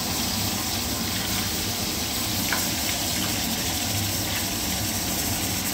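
Marinated chicken pieces frying in hot oil in a kadhai: a steady sizzle as pieces are dropped in one by one.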